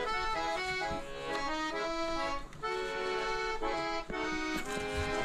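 Background music: a melody of held notes changing every half second or so.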